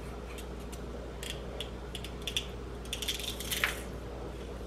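Metal garlic press squeezing a clove of garlic: small clicks from the handles and a crushing squish, busiest about three seconds in.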